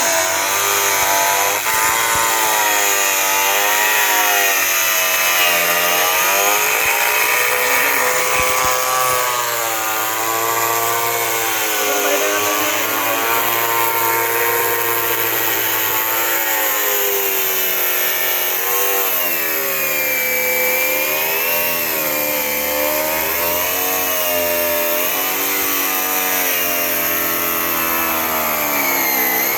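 Power tool cutting through a sealed front-load washing machine drum, its motor running steadily with a pitch that keeps wavering up and down as the load on the blade changes.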